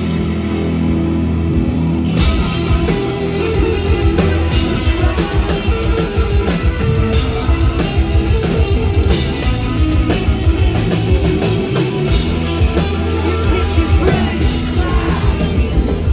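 Loud rock music with distorted guitars, pounding drums and singing.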